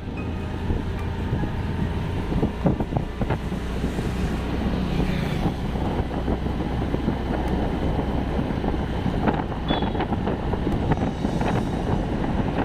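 Wind buffeting the microphone from riding a motorbike at road speed, a steady low rush with the bike's running and road noise underneath.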